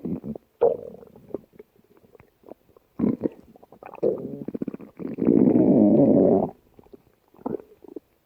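A person's stomach growling: short, irregular gurgles and rumbles, then one long, loud gurgling rumble lasting about a second and a half a little past the middle, then a few more short gurgles.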